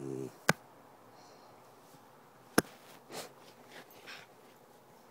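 A puppy gives a brief low growl as it plays with a sock, then a few soft sniffing breaths close to the microphone. Two sharp clicks, about two seconds apart, are the loudest sounds.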